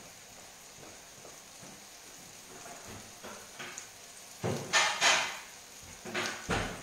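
Strips of frappe dough frying in oil in a pan, a steady faint sizzle. About four and a half seconds in and again near the end come a few loud knocks and clatters, a plate being fetched and handled.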